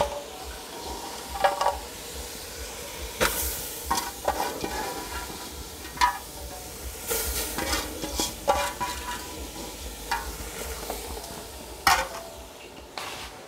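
Omena (small Lake Victoria sardines) frying in an aluminium pot over a wood fire, stirred with a spoon that scrapes and knocks irregularly against the metal.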